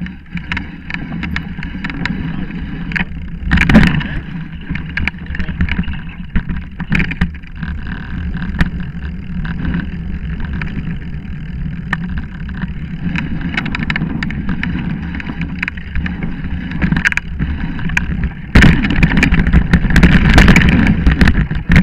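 Mountain bike descending a dirt trail: steady rumble of the tyres on dirt and rattling of the bike, with frequent sharp knocks over bumps. It is loudest briefly about four seconds in and again over the last three seconds.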